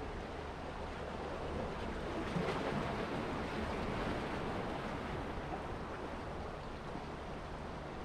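Sea surf washing against shoreline rocks, swelling about two seconds in and easing off again, over a low steady rumble of wind.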